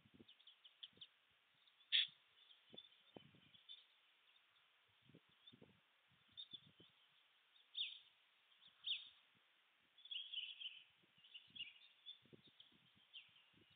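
Faint small-bird chirps and short trills in the background, with one sharper call about two seconds in and a busier twittering stretch after about ten seconds. Scattered soft low thumps come between the calls.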